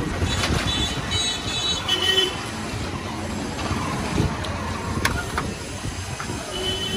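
Busy street traffic noise, with a brief high horn-like honk about a second in and a sharp click about five seconds in.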